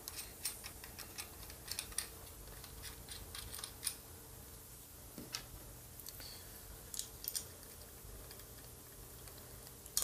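Small irregular metallic clicks and ticks as nuts are threaded by hand onto the mounting studs of an air conditioning compressor, with light handling of the metal parts.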